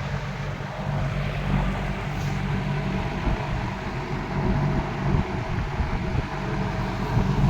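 Late-1960s Eskimo 20-inch two-speed box fan running on high: a steady rush of air over a low, even motor hum.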